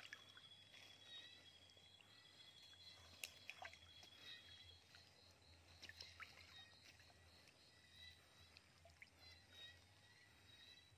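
Faint water sloshing and small splashes as a person wades chest-deep in a river, over a high, steady trill in the background that stops about halfway through while a regular high chirping goes on.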